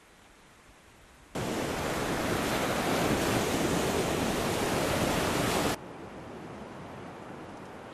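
Small Baltic Sea waves washing onto a sandy, stony shore: a steady rushing surf that starts abruptly about a second in and stops abruptly about four seconds later, leaving a faint outdoor hiss.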